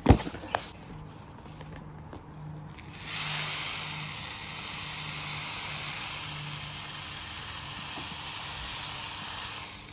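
Budgie and canary seed being poured into a feeder, giving a steady hissing rustle of small seeds that starts about three seconds in and lasts about six seconds. A sharp click comes at the very start.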